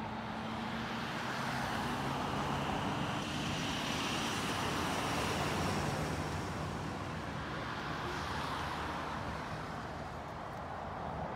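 Road traffic: a passing vehicle's engine and tyre noise growing louder to a peak about halfway, then fading.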